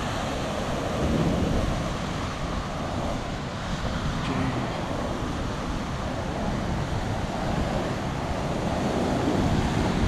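Ocean swell surging and washing against a rock ledge, a steady churning of surf, with wind buffeting the microphone.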